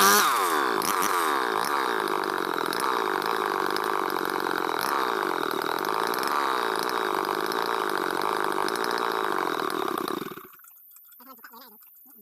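Engine of a wood saw running hard at high throttle, its pitch wavering up and down as it bogs and recovers cutting through ulin (Borneo ironwood). The sound cuts off suddenly about ten seconds in.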